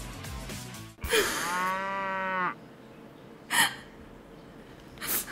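A cat gives one long, low protesting yowl of about a second and a half while it is held for a claw trim. Intro music cuts off just before it, and two short breathy bursts come later.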